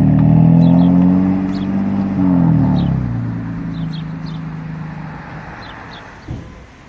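G-Power-tuned BMW M3 (F80) twin-turbo inline-six accelerating away. Its loud exhaust note climbs in pitch for about two seconds, drops at a gear change just after, then fades steadily as the car drives off. A short thump comes near the end.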